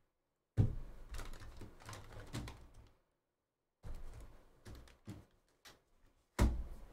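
Hard clear plastic trading-card cases (magnetic holders) clacking against one another and against a plastic basket as they are lifted out and stacked. The knocks are irregular, with a short pause about three seconds in, and the loudest knock comes near the end.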